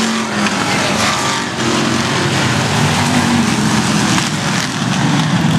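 A pack of stock race cars running together around an oval track, several engines overlapping in a loud, steady drone.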